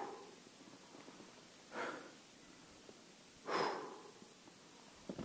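A skier breathing hard close to the microphone, one deep breath about every two seconds: he is out of breath after being caught and dragged in a slab avalanche.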